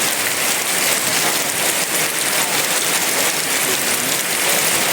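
Heavy rain falling steadily in a dense, even hiss, with no thunder.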